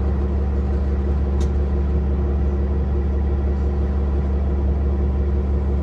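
Cummins L9 diesel engine of a 2022 Nova Bus LFS city bus, heard from inside the cabin, running with a steady low drone at an unchanging pitch.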